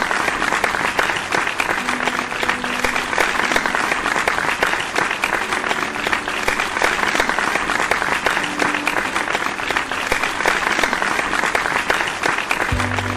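Audience applauding steadily, many hands clapping together, with faint background music underneath. The clapping dies down near the end as the music comes up.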